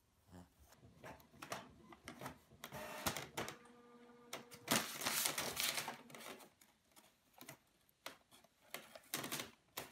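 Inkjet printer printing: the print head and paper feed clicking and whirring in quick irregular runs, with a brief steady motor hum about four seconds in.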